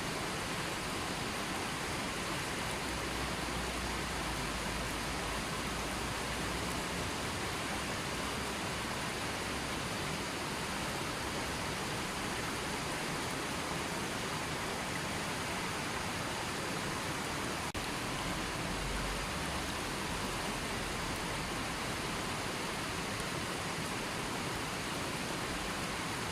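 River water flowing, a steady unbroken rushing that keeps the same level throughout.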